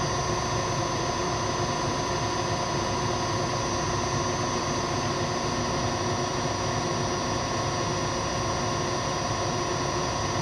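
Milling machine spindle and motor running steadily, spinning an edge finder, a constant hum with several steady tones in it.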